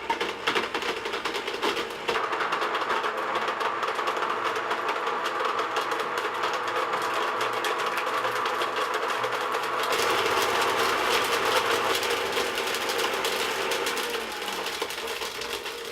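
Blender motor running with ping pong balls clattering inside the jar. It starts at once, gets louder about two seconds in and again around ten seconds, then eases off near the end.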